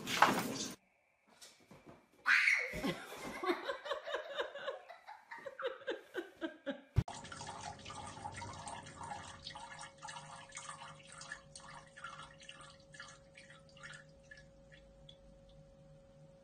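A toilet flushing, pushed by a cat's paw on the flush handle: loud rushing, gurgling water from about two seconds in, then from about seven seconds a steady hiss with a thin steady tone as the tank refills, slowly fading. A brief loud noise comes at the very start.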